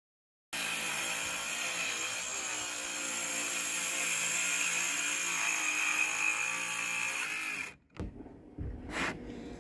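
DeWalt cordless circular saw running and cutting through plywood roof sheathing with a steady whine, starting about half a second in and cutting off suddenly shortly before the end. A few light knocks follow.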